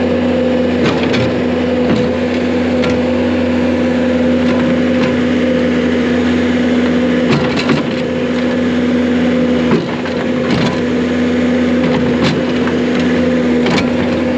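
Skid steer engine running steadily under load, with scattered sharp knocks and cracking as the machine is used to whack a stuck part on a tractor. The loudest knock comes about ten seconds in, after which the engine note eases slightly.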